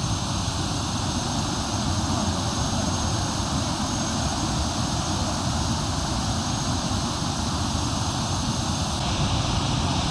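Thompson Falls waterfall rushing steadily: a dense, even wash of falling water with no breaks.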